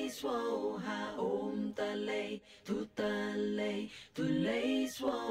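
A woman's voice singing a slow melody unaccompanied, in long held notes grouped into phrases with brief pauses between them.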